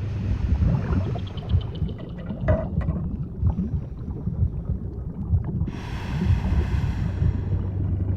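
Underwater ambience: a low, churning water rumble with a few faint clicks. About two-thirds of the way through, a rush of bubbling hiss comes in, like a stream of air bubbles.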